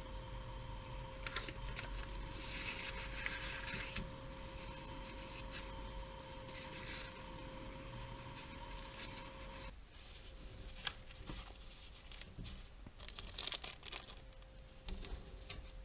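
Paper and plastic wrappers rustling and crinkling as hands handle a sealed towelette sachet and unfold a paper napkin, in irregular bursts, most active in the first few seconds and fainter after about ten seconds in.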